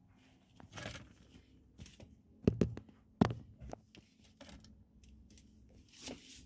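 A run of irregular clicks, knocks and rustling handling noise, with two louder knocks about two and a half seconds in and again under a second later.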